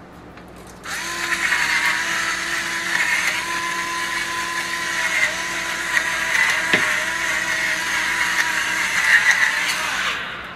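Electric salt and pepper grinder whirring steadily as its motor grinds, starting about a second in and stopping just before the end.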